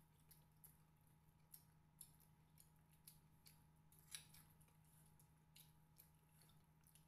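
Faint scattered clicks and smacks of people eating by hand, chewing and fingers picking at rice and meat on plates, with one louder click about four seconds in. A steady low hum runs underneath.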